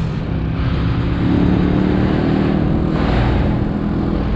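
Italika DT 125 motorcycle's single-cylinder four-stroke engine running under way, its pitch rising a little as it pulls ahead. A rush of wind and road noise swells about three seconds in.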